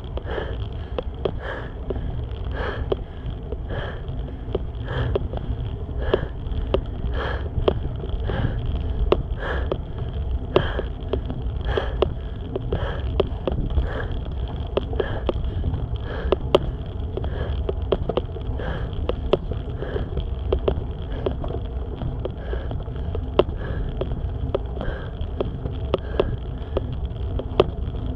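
A cyclist's heavy, rhythmic breathing from the effort of pedalling uphill, about one breath a second, over a steady low rumble.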